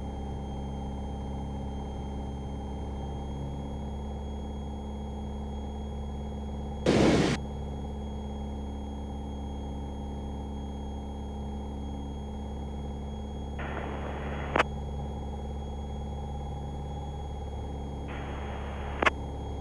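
Piper PA-28's single piston engine droning steadily in the cockpit. About seven seconds in there is a brief loud burst of noise, and near the end two short hisses, each ending in a click.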